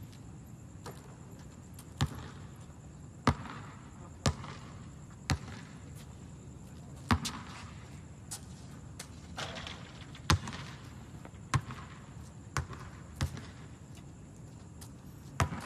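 Basketball bouncing on an outdoor hard court: sharp single bounces about once a second, unevenly spaced.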